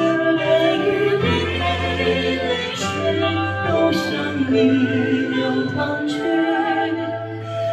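A male singer singing live into a handheld microphone, holding long notes with vibrato over keyboard accompaniment with a steady bass line; a few sharp, cymbal-like hits fall about three, four and six seconds in.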